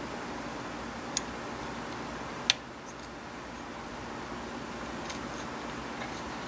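Small sharp clicks of an ESP8266 ESP-12 module's metal shield and edge pads against the bent header pins of a solderless adapter board as it is pressed into place. There are two clicks, the second louder, about a second apart, then a few faint ticks over a steady hiss.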